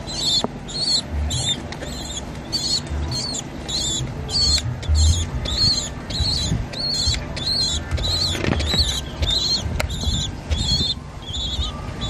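Pigeon squabs peeping in a steady run of short, high, quavering squeaks, about two or three a second, begging while being hand-fed.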